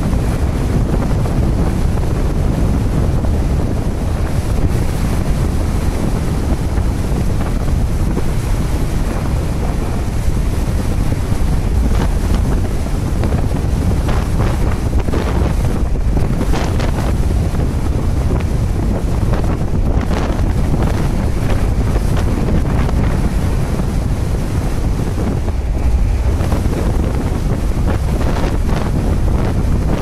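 Strong wind buffeting the microphone without letup, over the rush of sea water breaking along a tanker's hull.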